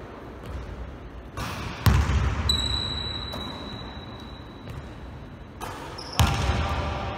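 A basketball bouncing on a gym court floor: two sharp bounces about four seconds apart, each echoing in the large hall. Between them a thin, steady high tone runs for about three seconds.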